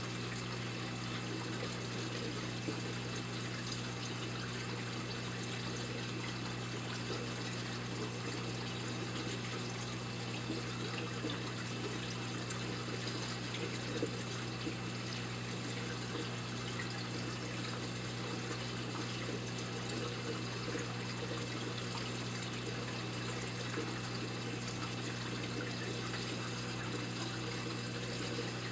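Saltwater aquarium's pump and filtration running: a steady trickle and rush of moving water over a low, even motor hum.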